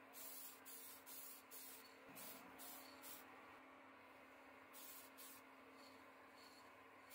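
Aerosol spray paint can hissing in short bursts: a quick run of about seven in the first three seconds, then a pause, then a couple more about five seconds in. The sound is faint.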